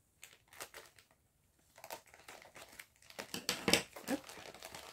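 Wrapping of a pack of yarn balls rustling as it is handled: a few faint rustles and clicks at first, then busier handling noise from about three seconds in.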